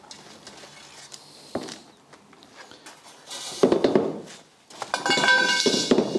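Expanded-metal mesh sieve and steel bars being handled over a plastic tub: quiet rubbing at first, a louder rattle about three and a half seconds in, then metallic clattering with a ringing metal sheet near the end.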